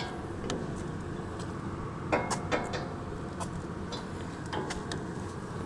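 Scattered light metallic clicks and taps over a steady low background noise, from a wrench working the adjusting bolt under a self-propelled reaper's star wheel.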